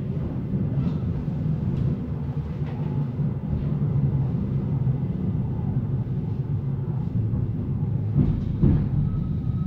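Interior of a Hamburg S-Bahn Class 472 'Cola-Dose' electric multiple unit under way: a steady low rumble of wheels on rail and running gear in the passenger car, with a few knocks about eight seconds in.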